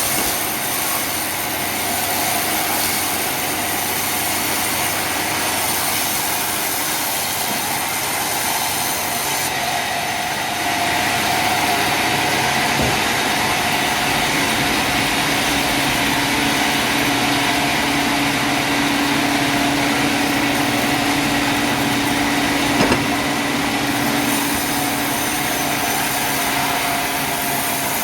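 Sawmill machinery running steadily: a continuous loud mechanical noise with held whining tones. It gets a little louder before halfway through, and a lower hum joins in during the second half.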